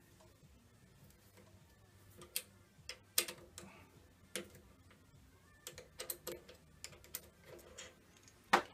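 Scattered metal clicks and knocks as a steel mandrel holding an aluminium block is worked free of a lathe's three-jaw chuck by hand. The sharpest knock comes near the end.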